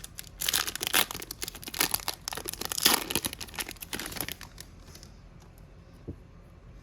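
A hockey trading-card pack's wrapper being torn open and crinkled by hand, a dense crackling that stops about four and a half seconds in, followed by a few faint clicks.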